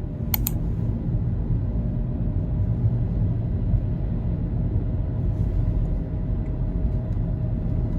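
Steady low rumble of a vehicle in motion, with a brief high click about half a second in.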